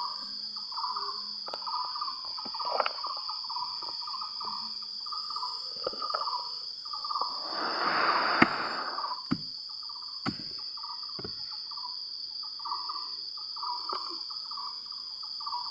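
Insects buzzing in a steady high drone over a run of short chirping calls, with a swelling rush of noise about eight seconds in and a few sharp knocks.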